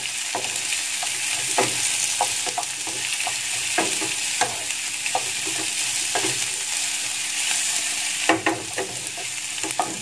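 Baby corn, carrots and sliced beef meatballs sizzling in oil in a frying pan with a steady hiss, stir-fried with a wooden spatula that knocks and scrapes against the pan at irregular moments.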